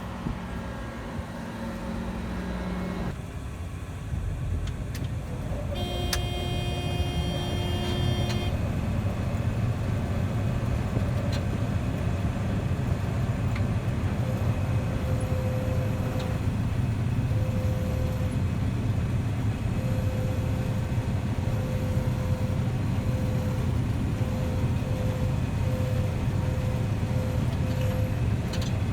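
Engine-driven farm machinery running steadily with a deep rumble that builds over the first few seconds. A short pitched tone sounds about six seconds in, and a faint tone pulses on and off through the second half.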